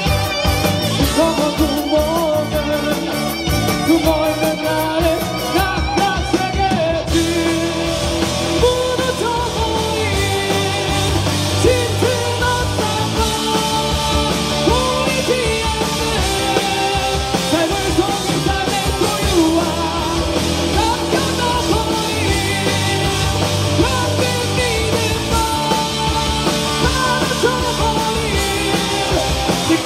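Live rock band playing: electric guitars, bass and drum kit, with a lead vocal sung over them.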